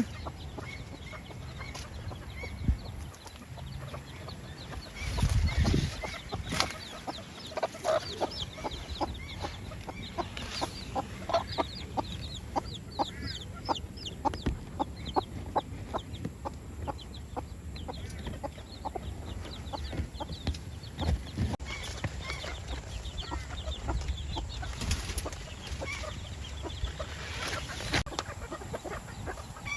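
Bantam chickens clucking, a long run of short repeated calls, busiest in the middle of the stretch. A brief low rumble comes about five seconds in.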